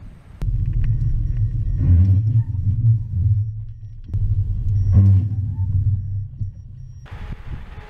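Loud low rumble of a car driving. It starts abruptly about half a second in and cuts off just as suddenly near the end, with a few faint clicks over it.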